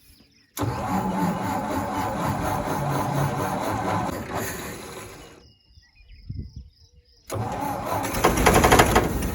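Old New Holland 1282 baler's engine cranked over on the starter twice: a first try that runs down after about five seconds, a short pause, then a second, louder try near the end that is close to catching but does not start.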